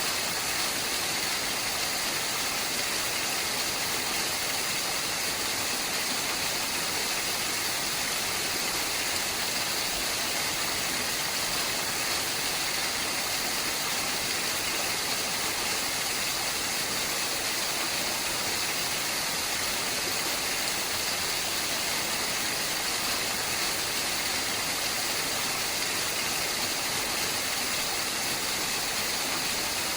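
Waterfall: water falling and splashing in a steady, unbroken rush, bright and hissy.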